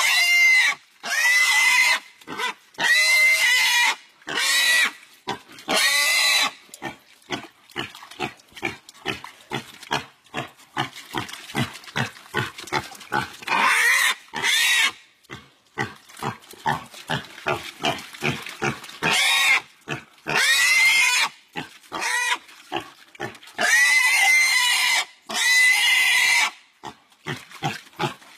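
A pig squealing in distress while being bitten and held by two dogs: long, shrill squeals again and again, bunched in clusters, with quick short grunts in between.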